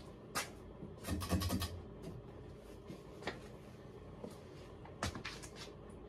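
Pull-chain speed switch on an Emerson Maui Bay ceiling fan clicking as it is pulled to medium, then a short rattle of the chain and a few light clicks, over a faint steady hum.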